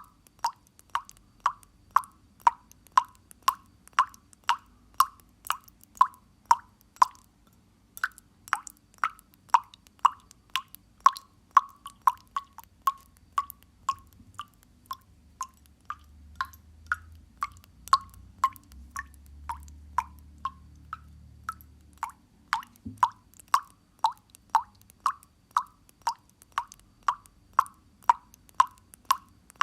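Water dripping steadily, each drop a short plop into water, about two a second. The drops grow softer for a few seconds midway, with a faint low rumble beneath them, then return to full strength.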